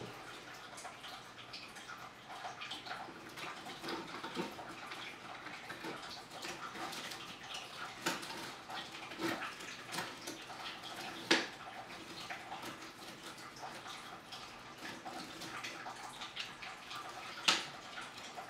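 Dry twigs and branches being pushed and repositioned in an empty glass tank: a steady run of small scratches, rustles and clicks as wood rubs on the glass and sand, with two sharper knocks, about eleven and seventeen seconds in.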